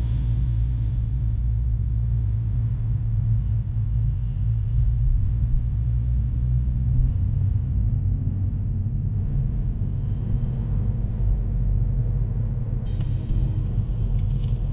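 Low, steady rumble inside the cabin of a 2018 Hyundai Veloster 1.6T as it drives.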